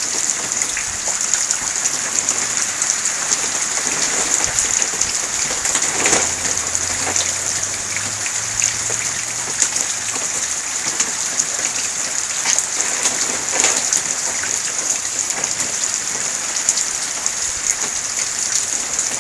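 Steady rain from the outer bands of Hurricane Sandy, with many individual drops striking hard surfaces close by. A faint low hum comes in for a few seconds around the middle.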